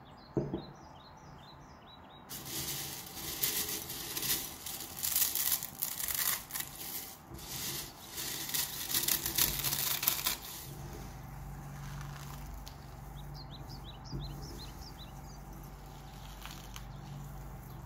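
Cornflakes being crushed by hand in a glass bowl: a dry crackling crunch for about eight seconds, then quieter pressing of the fine crumbs. Small birds chirp in the background, and a low steady hum comes in about halfway through.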